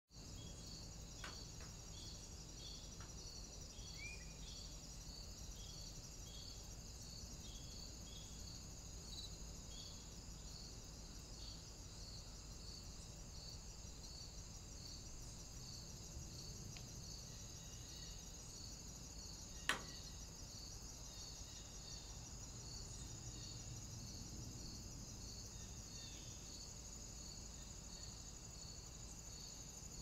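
Faint, steady high-pitched electronic whine with a regular soft pulse about twice a second, the trail camera's own circuit noise. A single sharp click comes about two-thirds of the way through.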